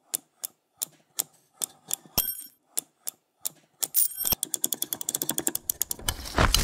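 A series of sharp mechanical clacks, slow and even at first and then a fast run, with two short bell-like dings, about two and four seconds in, and a louder rasping sweep near the end.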